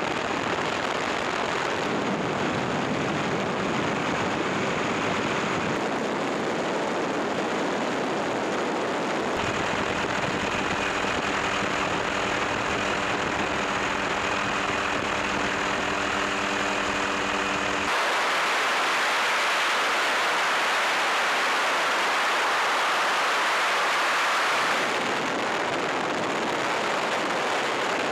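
Steady drone of a helicopter heard from aboard, engine and rotor noise mixed with wind rush. From about nine seconds in a steady multi-note hum runs under it. The sound changes abruptly at cuts about 18 and 25 seconds in, the middle part hissier with little low rumble.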